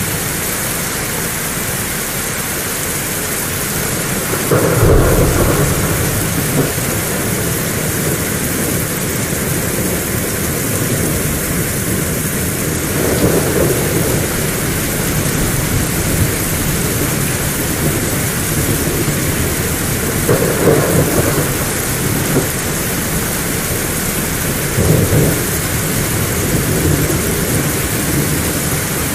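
Heavy rain falling steadily, with thunder rumbling four times, the loudest and most sudden about five seconds in.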